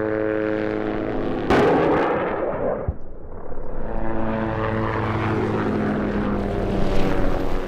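MD 500-series light helicopter flying past, a steady engine and rotor drone made of many even tones. About one and a half seconds in, a sudden loud rushing blast cuts in and fades over about a second and a half, after which the helicopter drone comes back.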